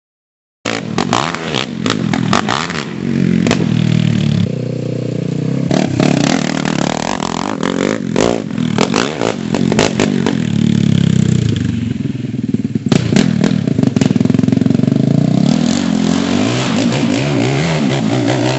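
Yamaha YFZ450 sport quad's single-cylinder four-stroke engine being ridden hard, its pitch rising and falling again and again with throttle and gear changes. Scattered sharp clicks and knocks throughout.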